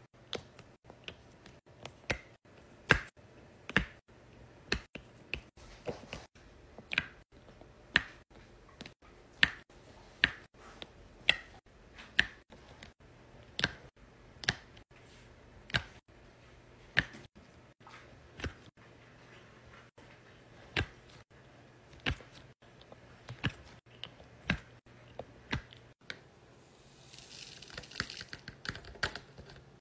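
Sharp clicking taps, about one a second, as a multi-placer tool presses round resin diamond-painting drills onto the sticky canvas. Near the end, a dense rattle of many small drills tumbling in a plastic storage box.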